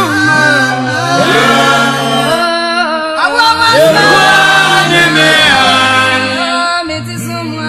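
Gospel singing in Twi, several voices in a chant-like choral style, over long held low bass notes that shift every second or two.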